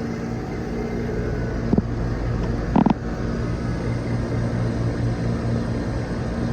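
Vacuum pump running steadily with a low hum, pulling a vacuum on an air conditioner's refrigerant circuit. A sharp click comes about two seconds in and a short knock about a second later.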